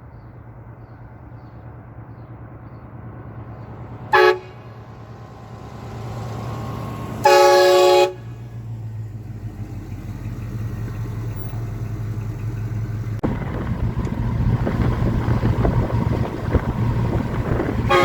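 Train horn fitted to a lowrider car, giving a short blast about four seconds in, a longer blast of under a second a few seconds later, and another brief blast at the very end. The car's engine runs underneath throughout and gets louder from about two-thirds of the way through.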